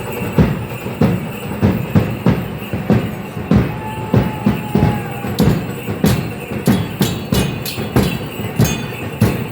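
Dance drum beating a steady rhythm of about three strokes a second, with a brief high whistle-like tone near the middle. Sharper, crisper percussive strikes join the beat from about halfway through.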